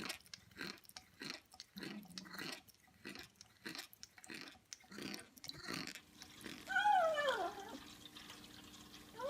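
Quick wet clicking, several a second, for about six seconds; then a cat's long falling meow about seven seconds in, and another meow starting right at the end.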